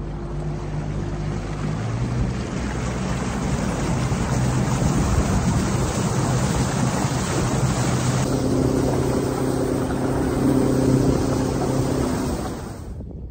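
Motorboat engine running the boat up to speed, with a steady drone, plus the rush of water and wind as the hull moves fast. A higher engine tone joins about two-thirds of the way through, and the sound cuts off suddenly near the end.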